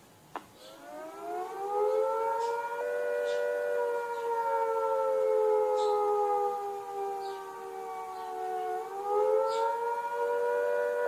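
Civil defence siren sounding the attack warning for an imminent attack. Its pitch climbs over about two seconds, sinks slowly for several seconds, then climbs again near the end.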